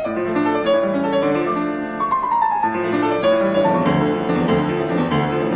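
Piano music, classical in style, with quick runs of notes sweeping down the keyboard, one of them about two seconds in.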